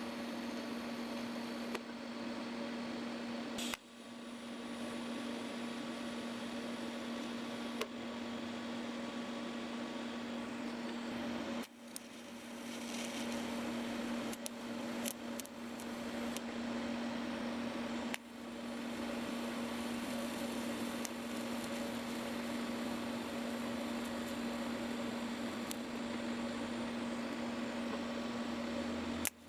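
Electric arc welder welding pieces of scrap steel together: a steady crackling sizzle over an even electrical hum. It is laid down in several runs, stopping briefly about 4, 12 and 18 seconds in.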